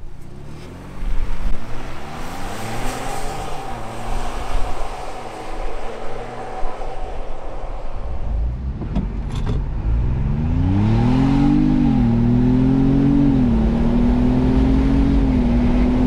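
2021 Ford Bronco Wildtrak's twin-turbo 2.7-litre EcoBoost V6, tuned with a JB4 on its 93-octane map, accelerating hard on a 0-60 run. The engine note climbs and drops back as the automatic shifts up, several times over, then holds steady near the end.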